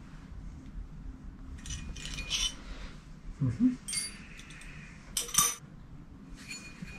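Light metallic clinks and rattles of steel hex keys being handled against the motor pulley of a milling machine, a few scattered taps with the sharpest a little past the middle.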